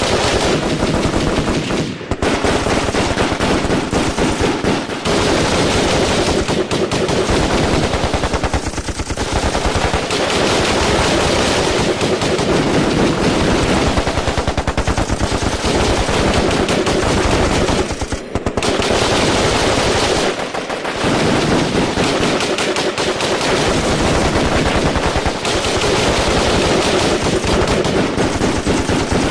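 Firefight: dense, nearly unbroken automatic gunfire from several weapons, shots overlapping, with a few brief lulls.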